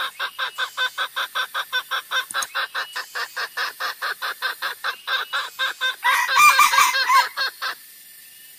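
Junglefowl calls from a lure recording: a fast, even run of short clucks, about five a second, then from about six seconds in a louder, busier burst of overlapping calls that stops suddenly near the end.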